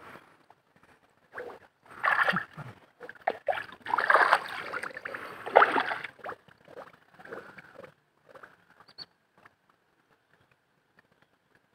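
Hands digging in wet mud and shallow muddy water to open up a crab's burrow: irregular squelching and sloshing, loudest in bursts during the first half, then dwindling to a few faint wet sounds.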